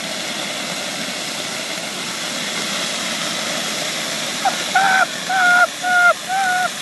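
Open fire hydrant jetting water across the street, a steady rushing hiss. About two-thirds through, four or five short, loud, high-pitched yells cut across it.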